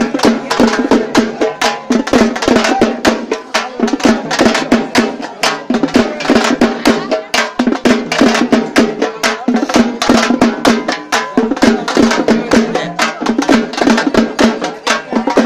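Dappu frame drums beaten hard in a fast, steady rhythm of about five to six strokes a second.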